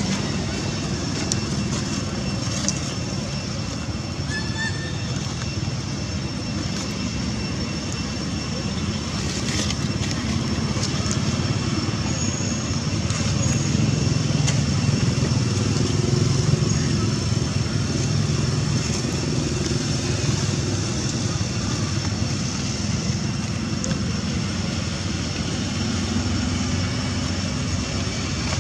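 Steady outdoor background noise: a low rumble that swells about halfway through, with a faint high steady whine and a couple of brief high chirps.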